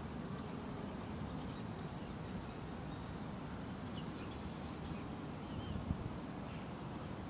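Steady low outdoor background noise with faint, scattered chirps of small birds.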